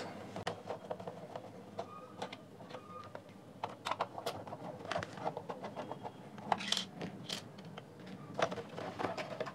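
A small screwdriver backing screws out of a plastic speaker housing, with faint scattered clicks, ticks and scrapes of the tool, screws and plastic being handled. A couple of sharper clicks come about seven seconds in.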